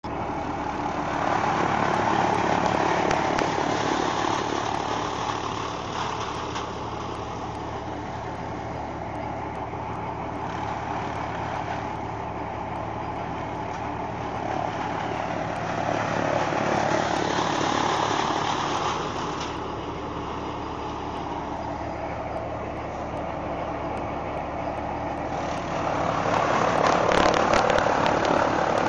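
Chaff cutter running with a steady low hum, its blades chopping green stalks as they are fed in. The chopping swells louder three times: about two seconds in, around seventeen seconds, and near the end.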